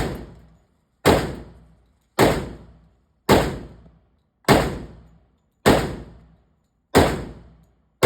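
A 10mm Auto pistol firing single shots at a steady pace, about one shot a second, each followed by a fading echo. Eight shots in all, the last right at the end.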